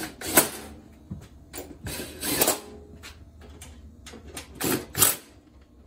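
Cordless drill driving the screws of a steel breaker-panel cover, in three short runs of about half a second each: near the start, about two seconds in, and about five seconds in.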